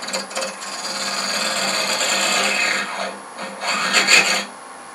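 Hunter Viceroy carbide cutter facing off the end grain of a wooden blank spinning on a lathe: a steady scraping cut for about three seconds, a short second pass a moment later, then the cut stops shortly before the end, leaving a faint motor hum.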